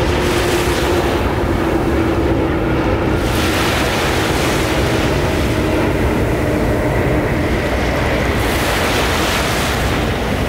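Surf breaking and washing up a sandy beach, with wind buffeting the microphone. The hiss of the washing water grows about three seconds in and again near the end, over a faint steady hum.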